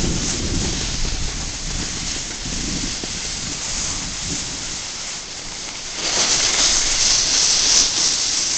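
Rushing noise of sliding downhill on snow: edges scraping over the snow surface and wind buffeting the phone's microphone, getting louder and hissier about six seconds in as speed picks up.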